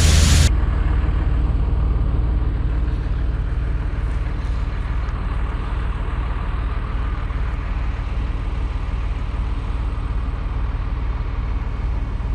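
A heavy engine running steadily, a low even hum. A louder rushing noise cuts off suddenly about half a second in.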